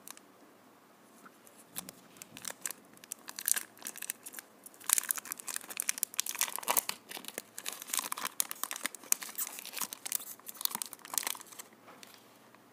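A Cadbury Dairy Milk chocolate bar's plastic wrapper being torn open and peeled off by hand: a run of crinkling, tearing crackles that starts about two seconds in, is densest in the middle, and stops shortly before the end.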